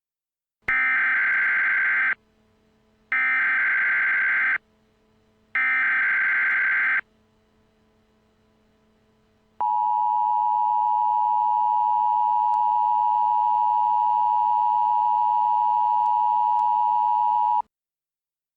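Emergency Alert System header: three identical bursts of screechy digital data tones, each about a second and a half long with a short gap between, then the steady two-tone EAS attention signal held for about eight seconds, marking the start of an alert.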